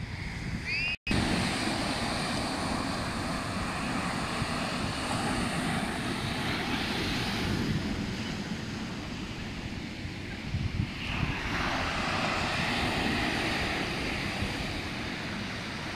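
Airliner engines rushing and rumbling steadily as a plane passes low over the beach near the airport, with surf and wind beneath. The sound cuts out for an instant about a second in.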